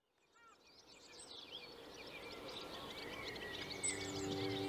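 Many songbirds singing over a steady outdoor hiss, fading in from silence and growing louder. Music with held notes comes in near the end.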